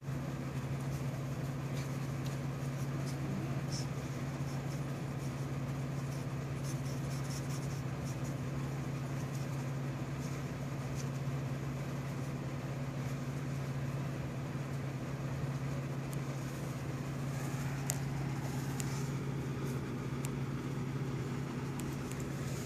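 A steady low mechanical hum with overtones, unchanging throughout, with faint scattered ticks over it.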